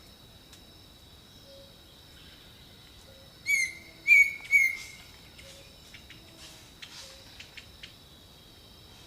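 Jungle birdsong: three loud, rich bird calls in quick succession near the middle, over a steady high insect drone, with faint low calls repeating in the background and short chirps afterwards.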